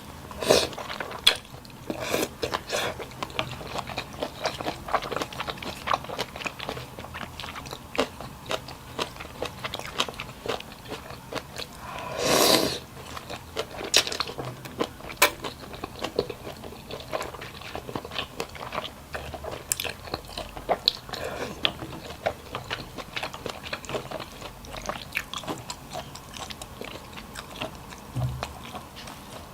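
Close-up eating sounds: a person chewing and biting, with many small crunches and wet clicks of the mouth, and one louder, longer noise lasting about half a second around the middle.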